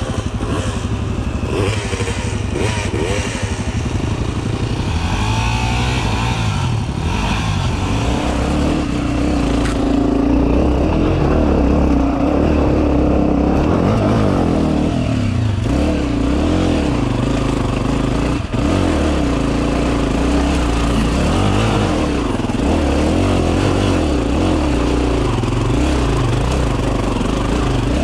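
Dirt bike engine running as the bike is ridden over a rough trail, its revs rising and falling with the throttle. It gets louder and steadier about a third of the way in.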